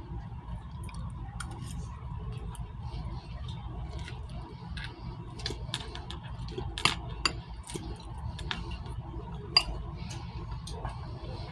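A fork clinking and scraping against a bowl of taco salad while eating, with scattered sharp clicks and two louder clinks about seven and nine and a half seconds in.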